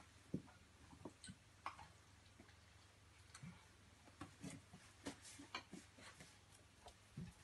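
Near silence broken by faint, irregular soft taps and clicks from a cat and a puppy scuffling over a cushioned pet bed, paws and bodies knocking on the bed and tiled floor.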